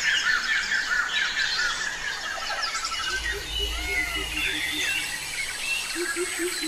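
Several birds chirping and singing at once, with quick repeated notes overlapping. A low, rapidly pulsed call joins about halfway through and again near the end, and a brief low rumble passes about halfway through.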